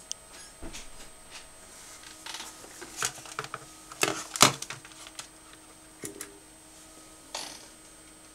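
Scattered sharp clicks and knocks at an uneven pace, loudest about three to four and a half seconds in, with a faint steady low tone entering about two seconds in.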